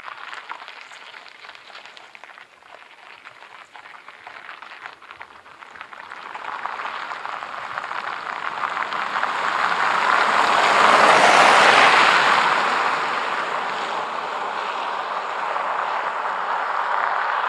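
A 2019 Kia K900 sedan driving past on a wet asphalt road: a rushing tyre and road noise swells as the car approaches, is loudest about eleven to twelve seconds in, then eases off as it moves away.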